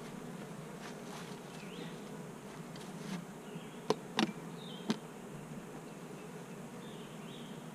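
Honeybees buzzing steadily around an opened hive, with three sharp clicks about four to five seconds in.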